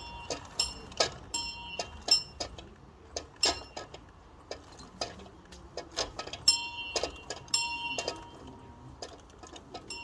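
A bell being rung, its clapper striking irregularly about two or three times a second. Each strike is a sharp clang with a brief high ringing. The loudest strikes come about three and a half seconds in and again between six and a half and seven and a half seconds.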